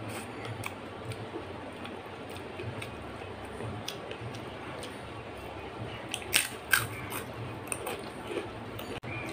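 Close-up eating sounds of a person chewing a mouthful of rice and dal: soft mouth and lip clicks, with two sharp louder smacks a little over six seconds in, over a low steady hum.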